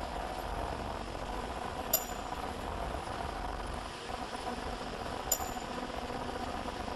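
Ultrasonic non-woven pillow making machine running with a steady hum. Twice, about 2 and 5 seconds in, there is a sharp click with a brief high ring, part of the machine's regular cycle of about one click every three and a half seconds.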